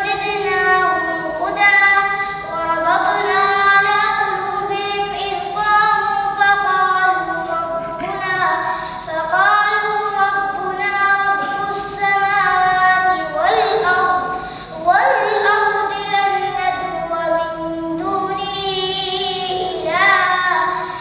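A boy reciting the Quran in Arabic in the melodic, drawn-out tajweed style: long held and ornamented vocal phrases, with brief pauses for breath between them.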